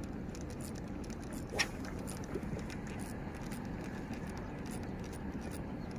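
Steady low outdoor background rumble, with one brief sharp swish about one and a half seconds in.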